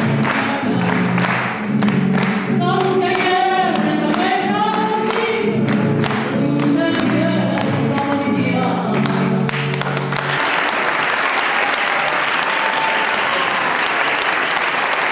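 A woman singing with a strummed guitar; the song ends about ten seconds in and the audience breaks into applause.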